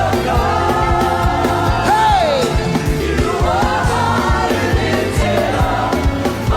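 Live gospel worship music: a band with drums and bass keeps a steady beat while voices sing long, gliding notes over it.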